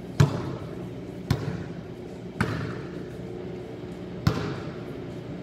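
Basketball bouncing on a gym court floor: four separate sharp thuds about a second or two apart, each followed by a short echo in the large hall, over a steady low hum.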